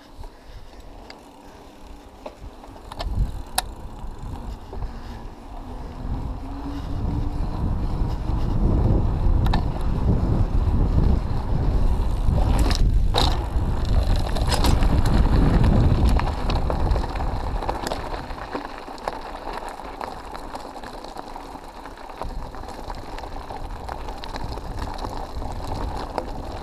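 Mountain bike descent heard from a bike-mounted camera: wind rushing over the microphone and tyres rolling on paved and then gravel track, with a few sharp knocks from the bike over bumps. The rush builds to its loudest about halfway through as speed picks up, then eases off.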